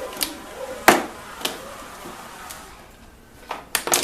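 Scattered sharp clicks and knocks of a wiring harness's plastic connectors and cables being handled and worked through a golf cart's plastic front trap door. The loudest comes about a second in, and a quick cluster follows near the end.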